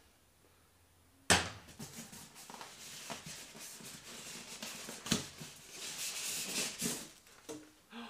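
Styrofoam packing insert being worked up and out of a cardboard box. There is a sharp knock about a second in, then a long stretch of foam scraping and rubbing against the cardboard, with a sharp click about five seconds in.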